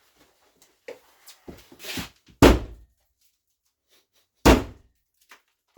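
Three heavy mallet blows, each a short, hard thud, with a few lighter knocks before the first. The blows are aimed at working a glued-on bathroom mirror loose from the wall.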